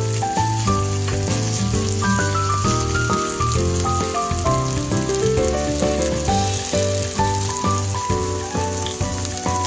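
Background music, a melody of steady held notes over a bass line, with the hiss and crackle of food sizzling in a frying pan underneath.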